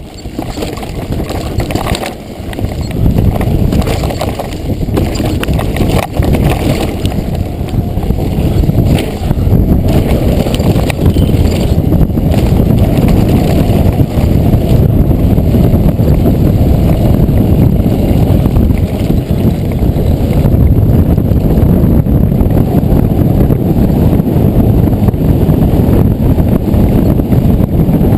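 Wind rushing over an action camera's microphone as a downhill mountain bike descends at speed, with knocks and rattles from the bike over the stony track. The rush builds over the first few seconds and then stays loud and steady.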